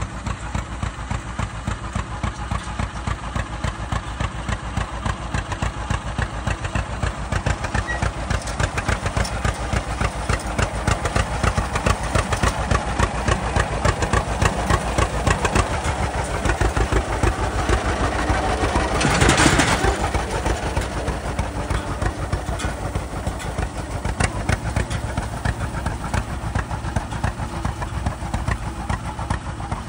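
John Deere A's two-cylinder engine running steadily under load, with its even pulsing exhaust beat, as it tows a hay rake. The sound grows louder to a brief peak with a rushing surge about two-thirds of the way through, then eases slightly.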